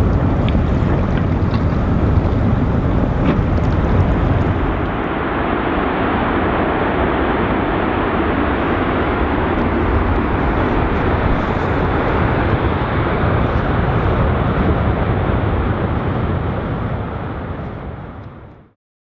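Loud, steady rushing noise with a deep rumble. It loses its highest hiss about five seconds in, then fades out to silence shortly before the end.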